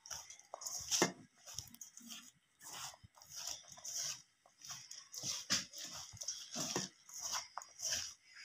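Grated raw potato, onion and gram flour being mixed by hand in a steel bowl: irregular soft crunching and squishing, a couple of strokes a second.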